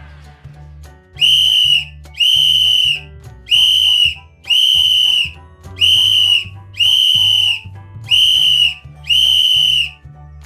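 Eight short, shrill whistle blasts, about one a second, each held on one steady high pitch, over background music with a repeating bass line.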